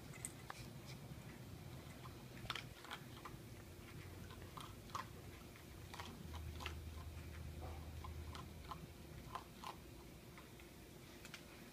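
Small dog eating from its bowl: faint, irregular crunching clicks.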